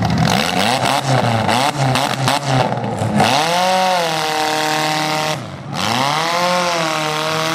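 Demolition derby cars' engines revving, several at once at first; then one engine is run up and held at high revs, let off briefly a little past halfway, and run up and held again.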